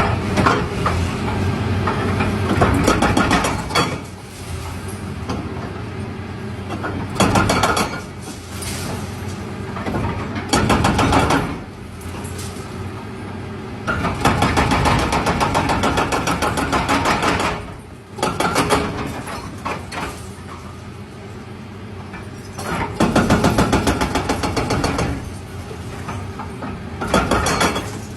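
Bulldozer engine running steadily, with several louder stretches of rapid clattering each lasting one to a few seconds.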